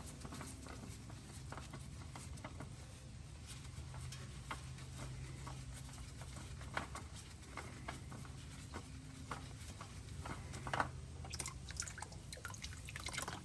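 Faint dripping and pattering of engine oil into a drain pan, with scattered small clicks and scrapes as the old oil filter is unscrewed by hand. The clicks get busier near the end.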